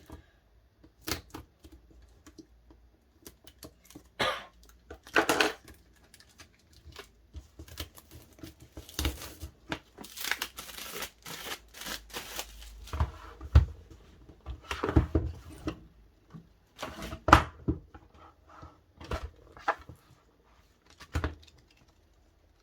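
Hands handling the DVD set's packaging and cards: crinkling and rustling of paper and plastic with many small taps and clicks, and a longer rustle or tear about ten seconds in.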